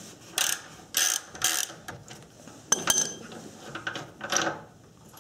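Ratchet wrench with a 24 mm socket clicking in several short runs of strokes while unscrewing a radiator cooling fan switch.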